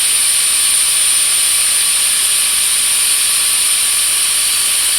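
Wood router on an Arduino-controlled CNC machine running steadily, its quarter-inch straight bit cutting a round pocket in softwood: an even hiss with a constant high-pitched whine.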